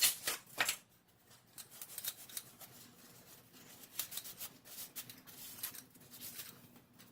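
Light metallic clicks and scraping of steering parts and hand tools being handled, with two sharper clicks right at the start and fainter scattered ticks after.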